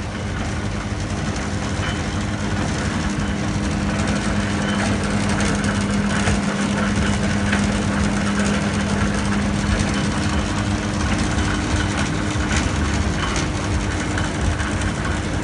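A machine's motor running steadily, a continuous low hum with a steady tone in it.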